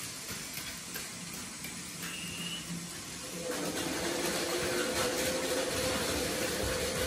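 Plarail Advance battery-powered toy trains running on plastic track: a steady rushing hiss of wheels and gears, joined about three and a half seconds in by a steady humming motor whine that gets louder.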